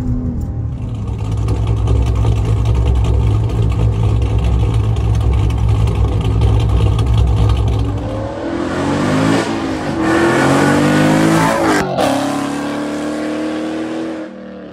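A 6.4-litre Hemi V8 with an aftermarket Comp Cams camshaft and long-tube headers, running hard under acceleration, heard from inside the cabin. Then, from the roadside, the engine revs up with a rising pitch twice as the car accelerates.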